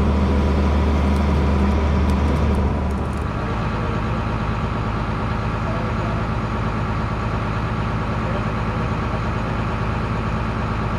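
Engine running steadily. About three seconds in, its note drops and it runs on quieter and lower.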